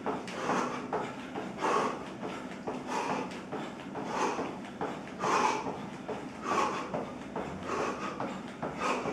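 A man breathing hard during a high-intensity workout, a forceful exhale about every second, with light footfalls on foam floor mats as he keeps moving in place.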